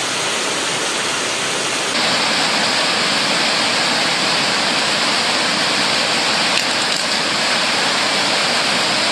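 Steady rush of flowing water, like a stream or small waterfall, which gets louder about two seconds in and then holds steady.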